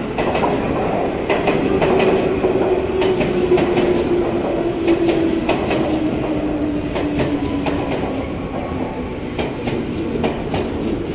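KRL Commuter Line electric train running along the platform and slowing, its motor whine falling steadily in pitch, while the wheels clack over rail joints in close pairs.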